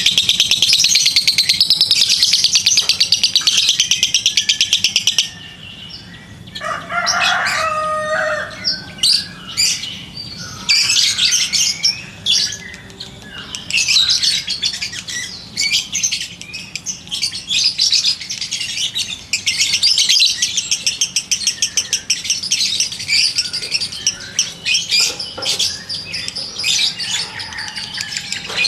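Caged lovebird chattering in fast, high-pitched trills: one long unbroken trill for about five seconds, then shorter bursts of chirps and trills.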